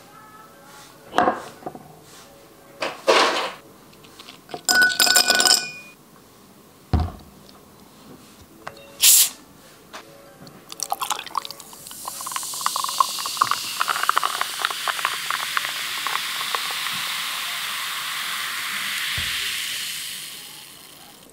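Glass clinking a few times, then carbonated water poured from a plastic bottle over ice into a glass, pouring and fizzing with a dense crackling hiss that slowly fades near the end.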